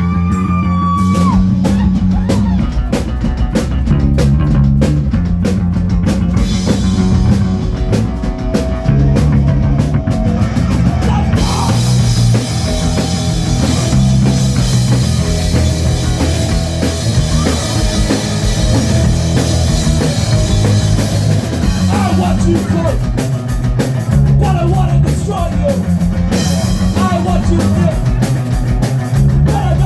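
Live rock band playing: a repeating funky bass line with drum kit and electric guitar. Cymbals open up about eleven seconds in, making the sound brighter.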